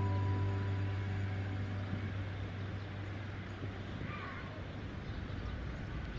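A held music chord fades out over the first two seconds, leaving open-air park ambience with a steady low hum of distant city traffic. About four seconds in there is one brief, faint high call.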